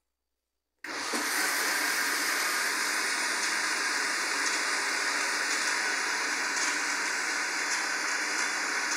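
Electric kitchen blender switching on abruptly about a second in and running steadily at full speed, blending a liquid mix of eggs, oil and warm water.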